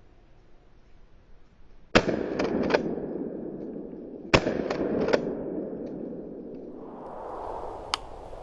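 Two gunshots about two and a half seconds apart, each echoing back a couple of times before fading: the shots that kill a rabbit run by beagles. A single sharp click comes near the end.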